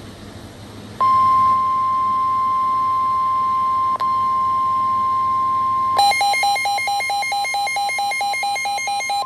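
Emergency alert tone: a steady, loud single-pitch tone starts about a second in, with a brief break about four seconds in. From about six seconds in, a rapid pattern of beeps, roughly four a second, sounds over the steady tone.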